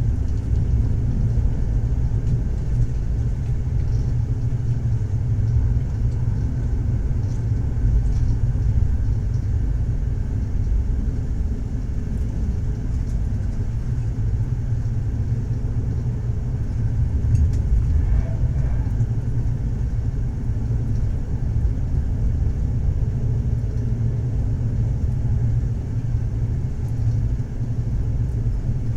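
Train in motion: a steady low rumble of the wheels running on the track, with no breaks.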